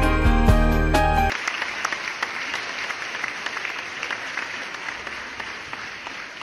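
Background music that stops abruptly about a second in, giving way to applause that slowly fades out.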